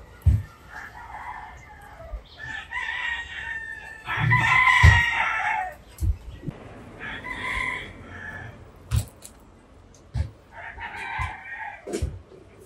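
Roosters crowing several times, the longest and loudest crow about four seconds in. A few short low knocks sound between the crows.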